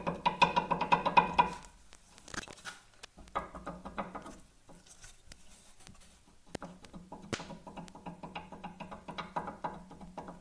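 Faint music with a steady pulsing beat, fading out a second and a half in and returning near the end, with a few light clicks and knocks in between.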